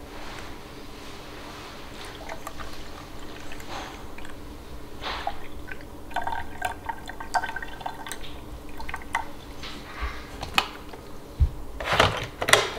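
Water pouring into the water tank of a robot vacuum-mop through its filling port, trickling and dripping. A few sharp plastic clicks and knocks come near the end.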